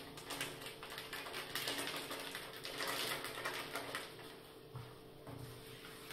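Crinkling and rustling of a small plastic sachet handled in wet hands: a quick, irregular run of light crackling clicks.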